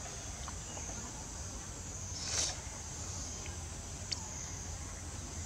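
Steady high-pitched drone of forest insects with a low background rumble. About two seconds in there is a short noisy burst, the loudest sound, and near the end a single brief high chirp.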